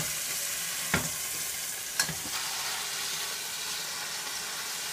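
Meat searing in a stainless steel frying pan, a steady sizzle, with two sharp clicks about a second and two seconds in.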